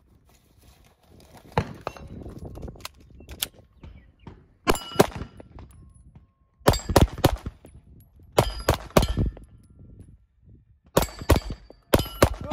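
A string of gunshots, fired in quick pairs and clusters of two or three, each group followed by the ringing clang of steel targets being hit.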